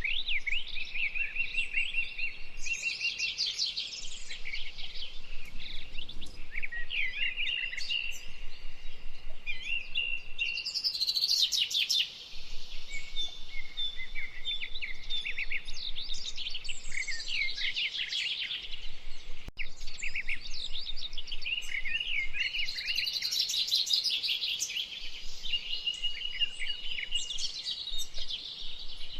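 A songbird singing a long, varied song of rapid chirps and trills mixed with short steady whistled notes, almost without pause.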